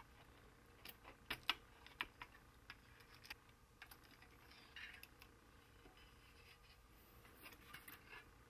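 Faint, scattered clicks and a brief light scrape of the sheet-metal shield and board frame of an LCD monitor being handled and lifted off the panel. The clicks bunch in the first few seconds; the scrape comes about five seconds in.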